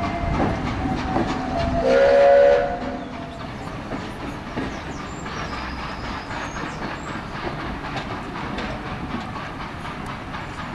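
A train moving along the track, with a short loud whistle sounding about two seconds in.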